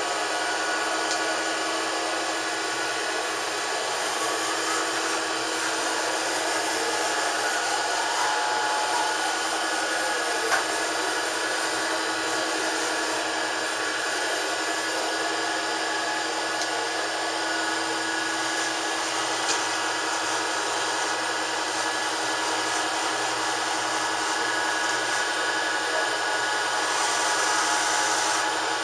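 Fadal 4020 vertical machining centre running with a steady whirring hum. A faint whine rises and falls in pitch during the first several seconds, there are a couple of light clicks, and a louder hiss comes briefly near the end.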